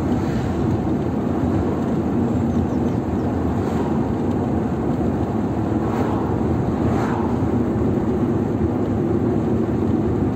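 Steady road and engine noise inside the cabin of a moving car: a continuous low rumble of tyres and engine at cruising speed.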